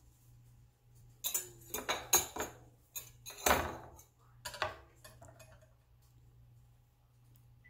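Wire whisk scraping and clinking against a ceramic mixing bowl as it stirs dry cornbread mix, a quick run of strokes for about four seconds that then stops.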